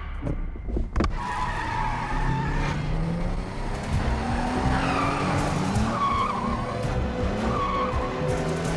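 Car engine revving hard, its pitch climbing in repeated sweeps, with tyres squealing on a smooth concrete floor in the second half. A sharp knock comes about a second in.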